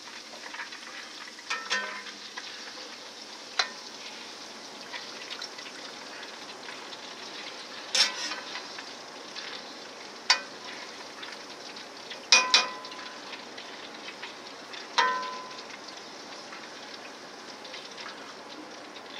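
Hot oil and freshly fried homemade potato fries sizzling steadily, with about six sharp metal clinks from a utensil scattered through it.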